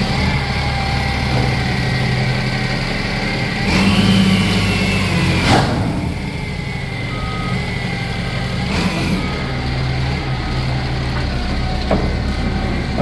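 Large engine running steadily. It swells briefly about four seconds in, with a sharp knock a second later and another near the end, and a few short high beeps in the second half.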